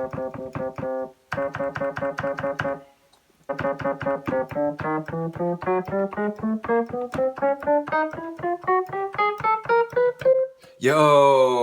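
Piano-like notes played from an AKAI MPK Mini MIDI keyboard on its default sound: one key struck rapidly again and again in two short bursts, then keys played one after another in a rising run up the keyboard, each note sounding. This is a test of the repaired keys, all of which now respond.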